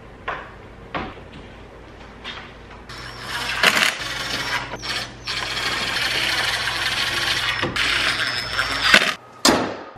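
Cordless impact driver running bolts into a truck's front radiator support: a short run, then a longer steady run of several seconds, stopping near the end. A few light clicks of handling come before it.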